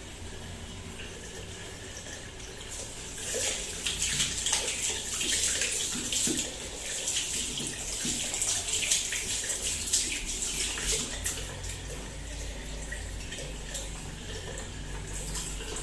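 Tap water running and splashing at a sink as hands are washed with soap, the splashing busiest from about three seconds in until about eleven seconds.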